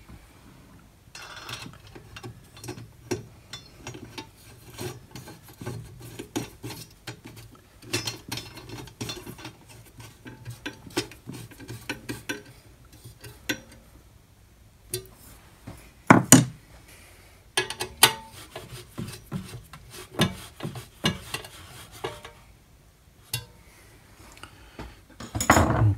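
Hex key fitting and turning a screw at the foot of an aluminium angle bracket: small metal clicks and rubbing throughout, with a couple of sharper knocks about 16 and 18 seconds in.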